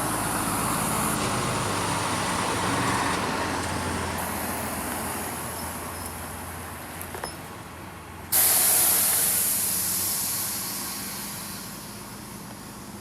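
Heavy diesel vehicle running while its air brake system lets out two sudden hisses of compressed air, one right at the start and a louder, sharper one about eight seconds in, each fading away over a few seconds.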